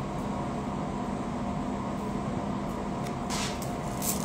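Steady hum of a room air conditioner. Near the end come a couple of brief rustles as a rubber glove is handled.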